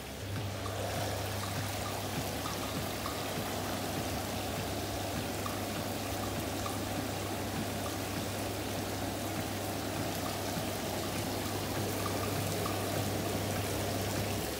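Caldera Capitolo hot tub with its jets and waterfall running: water churning and bubbling over a steady low hum from the jet pump. The pump hum cuts off near the end.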